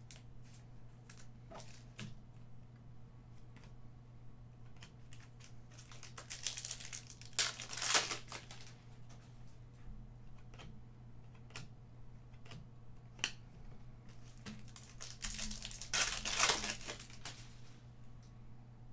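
Baseball trading cards being handled and flipped through, with light clicks as the cards slide and snap against each other. Two louder rustling stretches, about 7 and 16 seconds in, come from a foil card pack being torn open. A steady low hum sits underneath.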